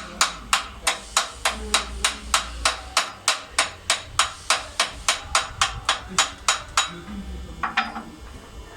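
A hand hammer striking metal in a steady rhythm, about three blows a second, stopping about seven seconds in.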